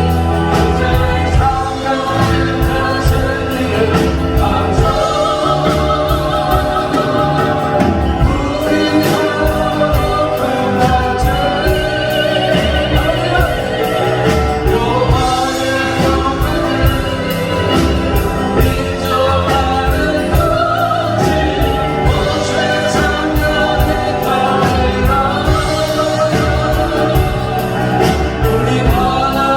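Christian worship song: voices singing a melody over band accompaniment with a steady drum beat.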